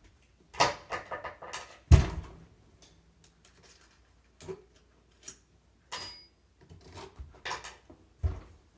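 Tools and parts being handled while replacing wheelchair caster bearings: a quick run of clicks and knocks, a loud thump about two seconds in, scattered knocks with a brief high ring, and another thump near the end.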